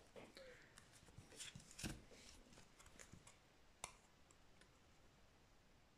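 Faint rustling and clicking of trading cards being handled and slid against each other, with one sharper click about four seconds in.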